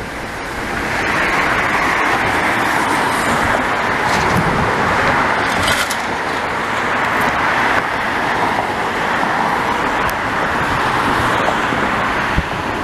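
Jet airliner engine noise: a loud, steady roar that swells over the first second or so and then holds.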